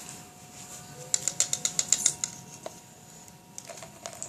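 Foamy water being added to slime glue in a container: a quick run of about ten small crackling clicks over about a second, then a few scattered clicks.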